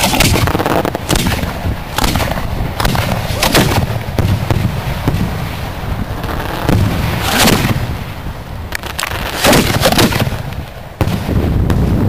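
Fireworks mortar shells fired from close-range 5-inch mortar racks and bursting: a string of sharp booms at irregular intervals over a steady hiss and low rumble. The loudest pair comes a little over three-quarters of the way in.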